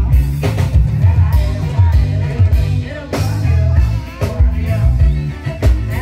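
Loud live band music played through a stage PA, with drum kit, bass guitar and keyboard, and a woman singing into a microphone. The bass and kick drum dominate the mix.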